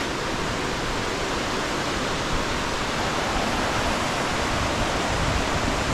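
The Ellis River rushing steadily over its rocks, running high and full with rain and snowmelt.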